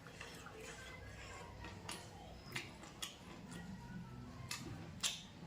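A person eating: irregular wet chewing and mouth-smacking clicks, with the sharpest click about five seconds in.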